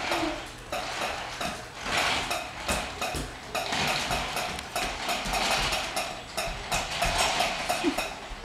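Rapid, irregular clicking and rattling of a small mechanism, with a faint steady hum under it.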